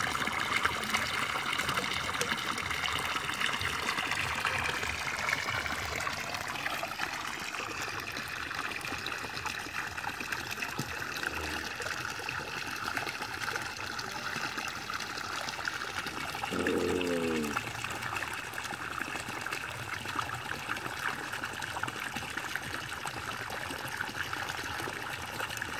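Water pouring steadily from the end of a white PVC pipe and splashing into a pond.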